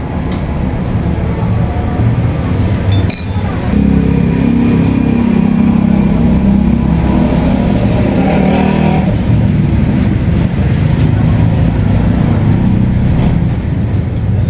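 Motorcycle engine running, getting louder about four seconds in and easing back after about nine seconds, with a sharp click just before it rises.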